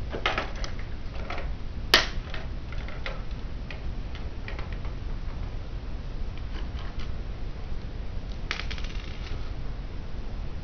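Small plastic Bionicle building parts clicking as they are handled and pressed together: scattered irregular clicks, with one sharp snap about two seconds in and a short rattling run of clicks near the end.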